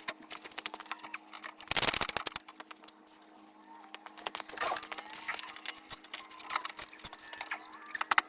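Hand tools clicking and tapping on the snowmobile's skid and bolts, with a burst of rapid clicking about two seconds in and a few faint high squeaks, over a steady low hum.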